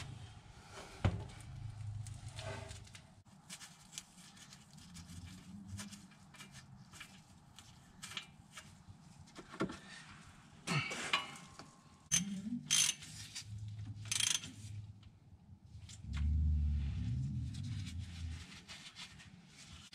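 Hydraulic oil draining from a tractor's drain plugs into a plastic drain pan, with scattered clicks and clinks of a wrench working the plugs. A louder low sound lasts a couple of seconds near the end.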